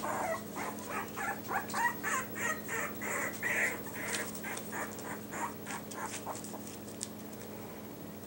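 Yorkshire terrier puppies squeaking and whimpering in quick, short, high-pitched calls, several a second, that thin out after about five seconds.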